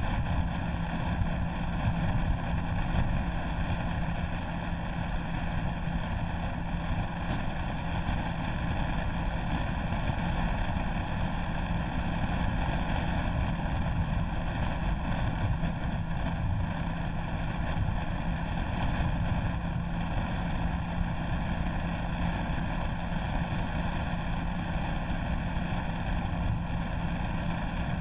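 Motorcycle cruising at a steady speed on the open road: a steady engine drone holding one pitch under constant wind rush over the microphone.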